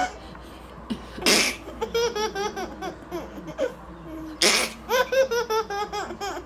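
Laughter, including a baby's. Two sharp, breathy bursts, about a second in and again about four and a half seconds in, are each followed by a run of quick, repeated laughing notes.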